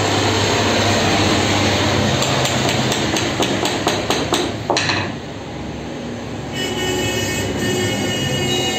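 Hammer tapping a small wooden block at the edge of a CNC router bed, about ten quick sharp strikes, over steady workshop machine noise. A high whine joins about two-thirds of the way in.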